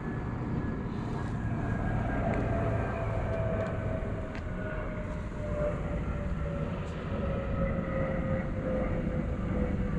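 Steady engine rumble with a whine that slowly and smoothly falls in pitch, as from a passing motor vehicle or aircraft.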